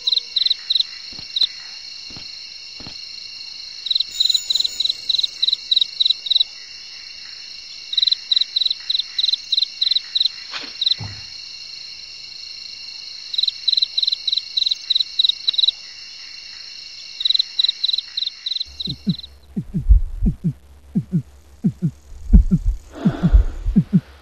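Night insects, cricket-like, chirping in regular bursts of rapid high pulses a few seconds long over a steady high-pitched insect drone. About 19 seconds in the chirping stops and a heartbeat-like run of low thumps begins, getting louder near the end.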